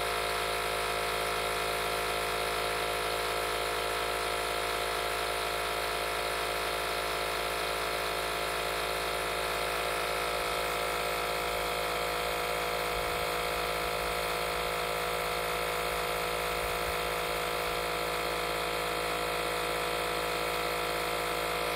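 A Milwaukee air pump runs steadily with an even motor whine. It is pumping against about 110 to 116 PSI to inflate a Tesla Model S's sagged front air suspension, which is rising only slowly.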